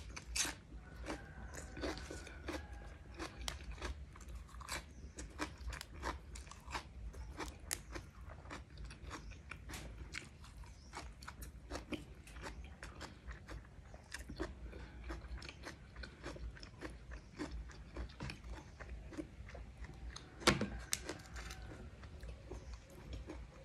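Close-miked chewing and crunching of raw cucumber, with many small irregular crisp clicks from the mouth. One sharper, louder click about twenty seconds in.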